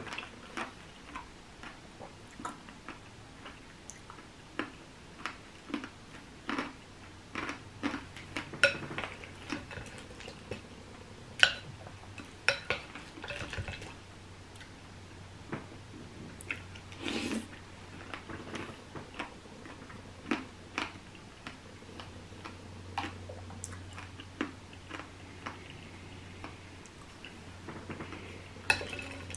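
A spoon clinking and scraping in a bowl of berries, ice and coconut water, in scattered sharp clicks about once a second, with a faint low hum underneath.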